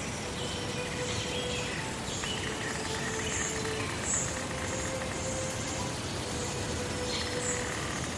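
Birds chirping, short high chirps repeating every second or so over a steady outdoor hiss.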